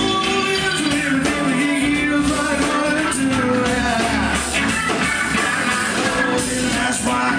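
Rock music with a singing voice, guitar and drums playing steadily.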